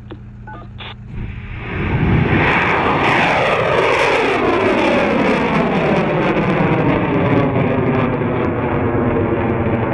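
Stiga rocket's engine igniting and lifting off. The roar builds about a second and a half in, then holds loud and steady as the rocket climbs away, with a set of tones sliding steadily down in pitch through it.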